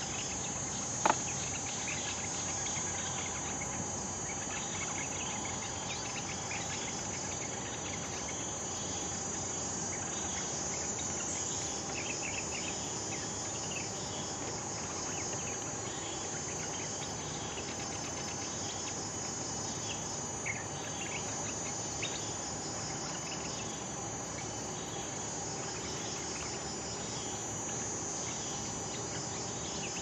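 A steady, high-pitched insect drone runs on without a break, with a few faint, short bird calls scattered through it.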